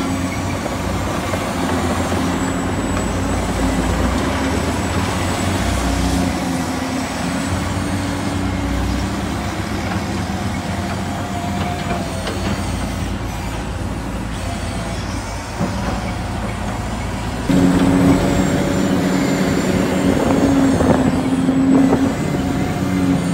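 Huina 1594 remote-control excavator working in dirt: a steady mechanical hum as it digs and slews, which gets louder about two-thirds of the way through.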